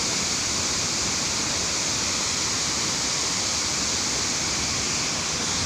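Dudhsagar waterfall: a steady, unbroken rush of falling water.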